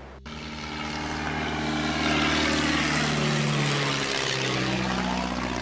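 De Havilland Tiger Moth biplane flying past overhead, the drone of its Gipsy Major four-cylinder engine and propeller. It starts abruptly, grows louder over about two seconds, then falls steadily in pitch as the plane passes.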